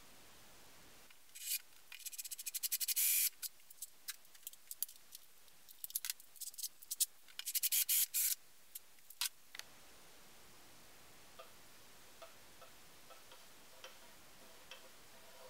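Small drill bit boring through a thin aluminium plate: clusters of rapid, high scraping and chattering clicks as the bit cuts, stopping about two-thirds of the way through. Afterwards only faint, evenly spaced ticks are left.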